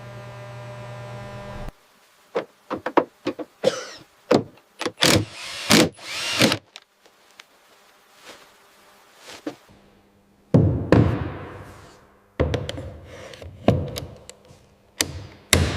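A steady electrical hum that cuts off abruptly about two seconds in, followed by a string of irregular knocks, thunks and short scraping sounds of metal work, with a lull in the middle.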